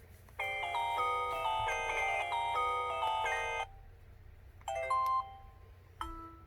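Built-in ringtone and alert sounds of a WPI-8800N VoIP phone: a quick electronic melody of many short notes lasting about three seconds, then a brief chime about five seconds in and another short tone near the end.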